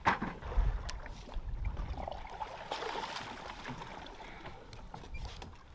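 Sea water sloshing and splashing against the side of a boat, with a sharp knock at the very start and a few small ticks; the splashing is strongest about halfway through.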